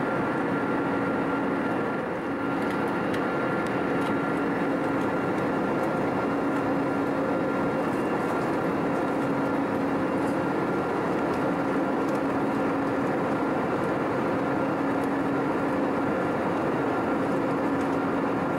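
Steady cabin noise of an Airbus A320neo airliner in cruise: a constant rush of airflow with a steady engine hum holding a few fixed tones.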